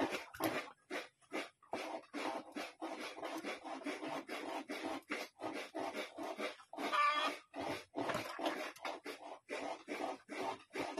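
An animal calling in a rapid run of short calls, about four to six a second, with one longer, pitched call about seven seconds in.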